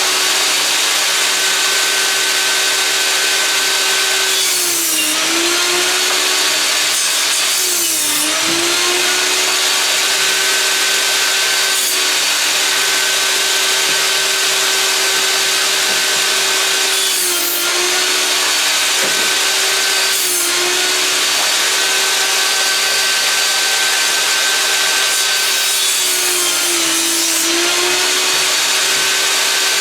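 Einhell table saw running continuously while boards are fed through it. The blade's steady whine drops in pitch several times as it slows under load in a cut, then recovers.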